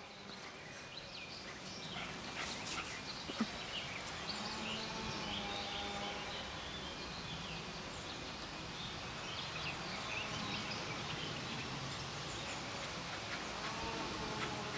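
Faint outdoor background noise with scattered short bird chirps.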